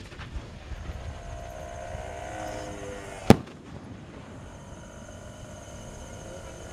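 A 5-inch married comets aerial firework shell bursting with a single sharp bang about three seconds in, after its launch.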